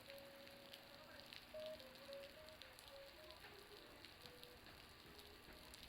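Faint, irregular crackling ticks of water dripping and falling from a building's roof, which sound like a bonfire crackling.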